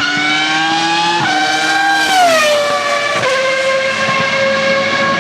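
Racing-car engine sound revving: a pitched engine tone that climbs a little, drops away around two seconds in, then holds steady at a lower pitch.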